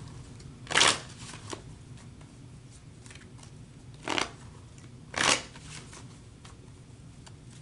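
Tarot cards being handled on a cloth-covered table: three short rustling swishes of card against card and cloth, about a second in, at about four seconds and just after five seconds, with faint ticks between.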